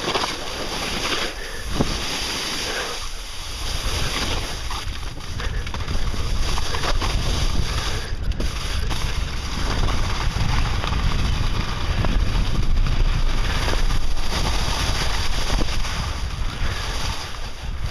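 Wind buffeting the microphone during a fast descent on snow, with the scrape and hiss of edges sliding over rough, sun-cupped spring snow. It grows louder after the first few seconds.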